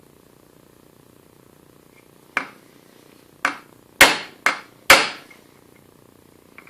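Five sharp hammer blows driving a bearing onto the sander's shaft; the last three, coming quickly, are the loudest. They seat the bearing as far as it will go.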